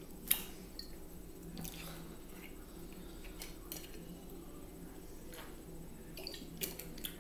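Handling of a small shot bottle as its cap is twisted open, with a sharp click about a third of a second in and scattered light clicks after, then quiet swallowing as it is drunk.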